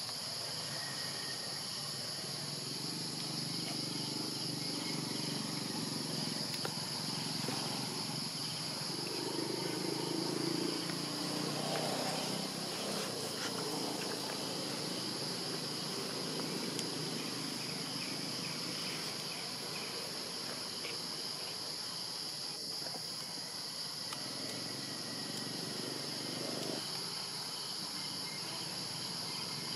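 Steady chorus of insects, a continuous high-pitched buzz that does not let up.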